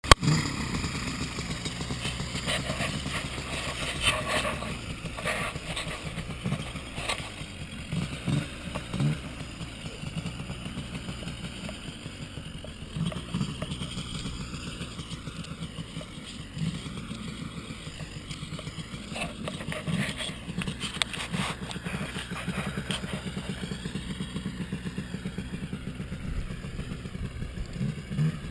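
A small engine running steadily with an even, fast pulse, while wind buffets the microphone.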